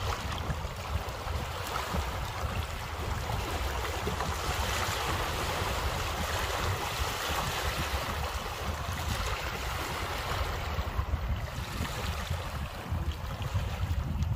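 Small waves of a lake lapping and splashing over a stony shore, steady throughout, with gusty wind rumbling on the microphone.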